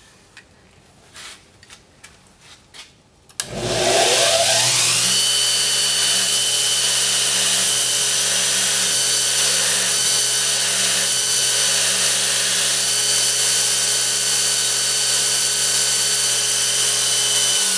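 Electric grinder switched on about three and a half seconds in, its motor whining up to speed and then running steadily as the mushroomed, work-hardened steel head of a hot chisel is ground down to remove the fractured metal. Right at the end the motor's pitch begins to drop as it winds down. Before it starts there are only faint small clicks.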